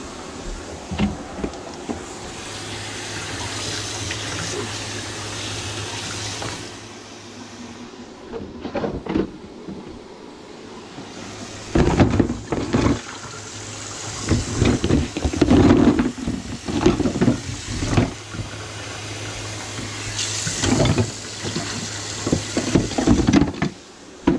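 Greasy drain water from a catch bucket being poured into a stainless-steel kitchen sink: running water at first, then splashing in several loud bursts, over a steady low hum.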